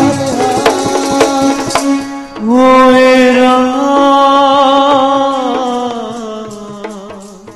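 Sikh kirtan music: tabla strokes over a steady pitched accompaniment. About two and a half seconds in, a long note is held and slowly fades toward the end.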